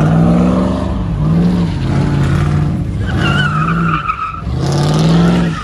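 Car engine revving up and down hard several times, with a tire squeal lasting about a second and a half midway: the car is spinning its tires.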